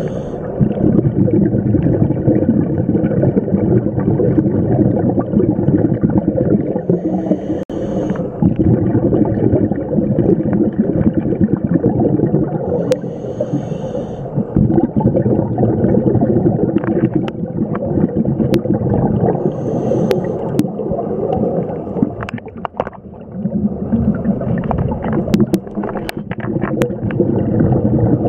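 Scuba breathing heard underwater through the camera: long rushes of exhaled bubbles gurgling from a regulator. Every six seconds or so they break for a short hissing inhale through the demand valve. Scattered sharp clicks come in the second half.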